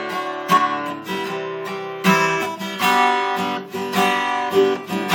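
Acoustic guitar strummed in a steady rhythm, chords ringing between strokes.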